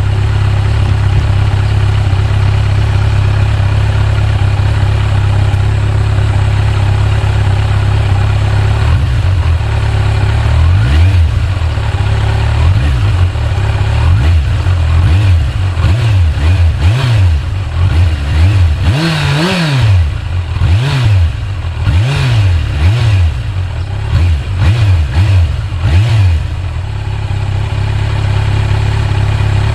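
Kawasaki Z900 inline-four engine on its stock exhaust, warmed up, idling steadily, then revved in a run of about a dozen short throttle blips from about nine seconds in, the biggest near the middle, before settling back to idle. Quite quiet when blipped, with the engine's own mechanical noise louder than the exhaust.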